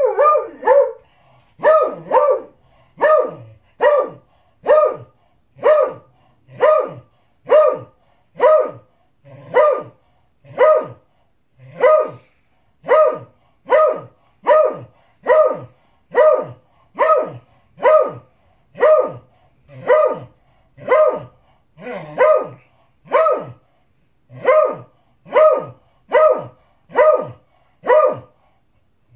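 Beagle barking over and over, about one bark a second, some in quick pairs, each bark at the same pitch: demand barking for its dinner.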